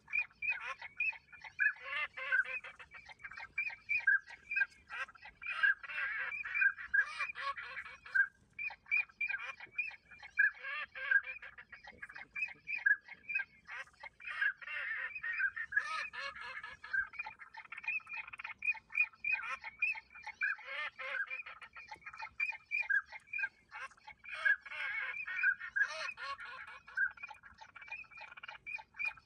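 A chorus of ducks calling: many short, quick quacking notes overlapping without a break, stopping briefly about eight seconds in.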